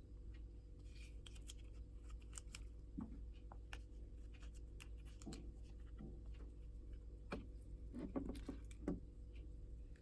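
Faint, scattered clicks and soft knocks of hand food preparation, denser near the end, over a steady low hum.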